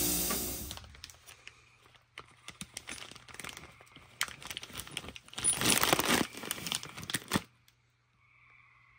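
Clear plastic zip bag crinkling and rustling in the hand as cleaned brake pins and bolts are handled inside it. The rustling is loudest about six seconds in and stops shortly after. A steadier sound carried over from before fades out within the first second.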